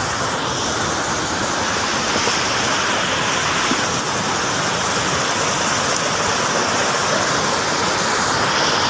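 Muddy flash-flood water rushing in a swollen forest stream: a loud, steady wash of moving water.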